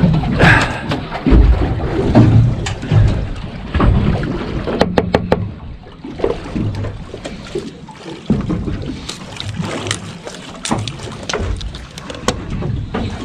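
Scattered knocks and clatter from handling fish and gear on a small aluminium boat's deck, with a quick run of sharp clicks about five seconds in, over an uneven low rumble.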